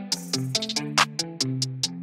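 Background music with a quick beat and short melodic notes.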